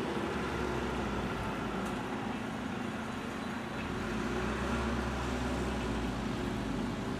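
Motor vehicle engine running steadily: a low rumble over street noise, heavier for a couple of seconds past the middle.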